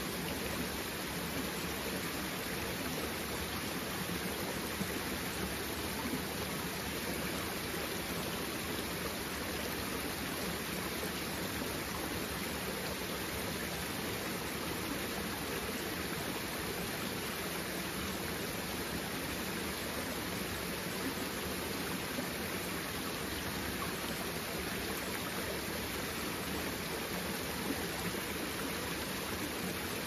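A small rocky mountain stream burbling over stones, with a little cascade splashing into a pool: steady running water.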